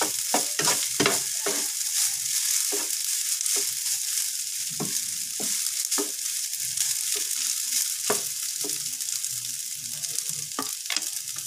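Leftover rice frying in a nonstick pan with a steady sizzle, while a slotted spatula scrapes and taps against the pan as the rice is stirred and spread. The strokes come quickly in the first couple of seconds, then more sparsely.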